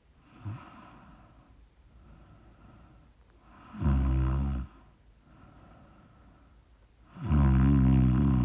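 A woman snoring in her sleep: two loud, low snores, the second longer than the first, with quieter breathing between them.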